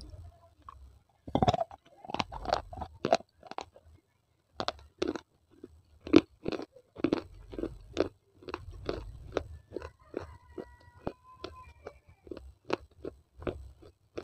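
Baked clay pottery bitten and crunched between the teeth. A quick run of sharp crunches starts about a second and a half in, then the crunching carries on as the clay is chewed.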